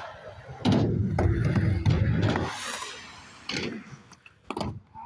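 Skateboard rolling on a sheet-metal ramp: a knock, then about two seconds of loud rolling rumble, followed by two sharp clacks of the board about a second apart near the end.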